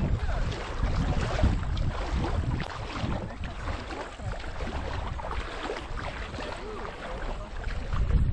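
Wind buffeting the microphone in gusts over a steady rush of water.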